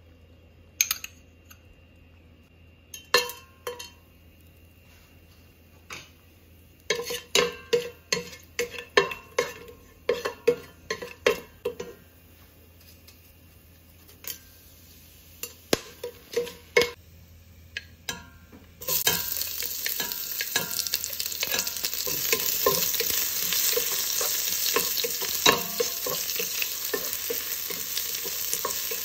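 Wooden spatula clicking and knocking against a stainless steel pot while whole spices are stirred in hot ghee. About 19 seconds in, sliced onions go into the ghee and a loud, steady frying sizzle starts suddenly, with the spatula still stirring.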